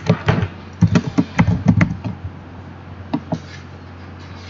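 Typing on a computer keyboard: a quick run of key clicks for about two seconds, then a couple more keystrokes a little after three seconds in.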